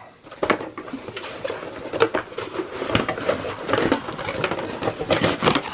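Cardboard box packaging being handled: a cardboard insert and plastic-wrapped contents lifted and shifted, with irregular rustling, scraping and tapping.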